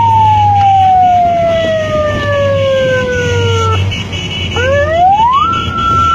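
A siren with a single wailing tone: it holds high, slides slowly down for about four seconds, cuts out, then winds quickly back up to the same high pitch and holds there.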